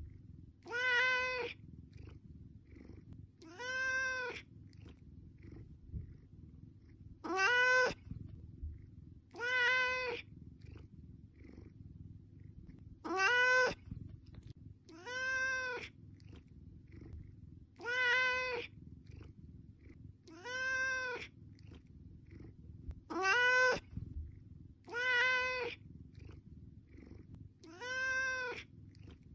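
A cat meowing over and over: about eleven even, drawn-out meows, each about a second long and alike in pitch, repeating every two to three seconds over a low steady rumble.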